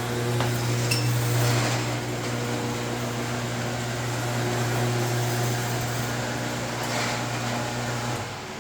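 Craftsman garage door opener motor running with a steady hum as it drives a 10-foot roll-up door, with a couple of light clicks along the way. It cuts off abruptly near the end as the door reaches its set limit stop.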